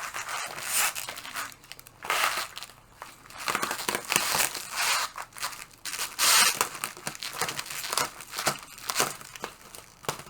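Packing material crinkling and rustling in irregular bursts as a packed item is unwrapped by hand, loudest a little past the middle.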